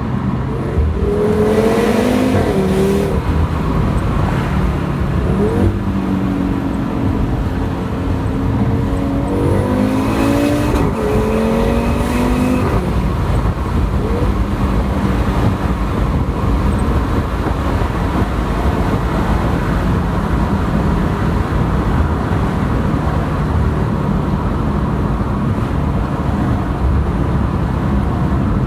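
Audi RS3's turbocharged 2.5-litre five-cylinder engine, running an APR Stage 2 tune, loud throughout. The revs rise and fall a few times in the first half, then it runs more steadily.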